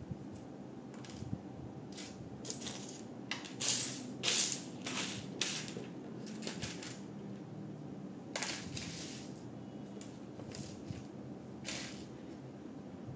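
Small plastic LEGO pieces clicking and clattering as hands rummage through them, in irregular short bursts, the loudest about four seconds in.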